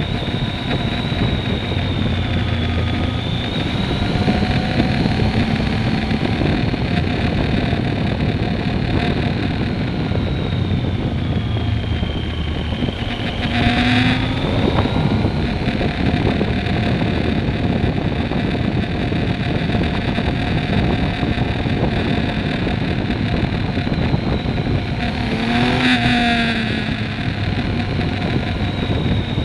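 Sport motorcycle running at road speed through a series of curves, with wind on the microphone. The engine rises briefly in revs and falls back twice, about halfway through and again a few seconds before the end.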